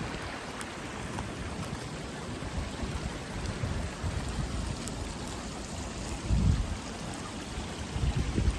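Steady rushing water noise, like rain or a nearby waterfall, with two brief low rumbles about six and a half and eight seconds in.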